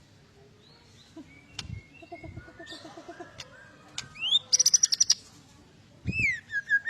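White-rumped shama (murai batu) singing an excited, aggressive song: scattered short whistled notes and glides, then a loud rapid rattle of repeated notes about halfway through, and loud slurred whistles near the end. A couple of low thuds are also heard.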